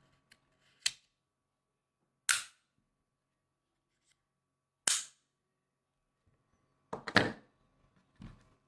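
A handful of sharp, separate clicks or knocks, roughly two seconds apart, with a quick cluster of them near the end.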